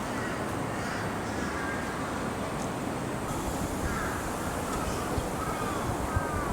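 A bird giving several short, thin calls, each a slight falling glide, over steady background noise.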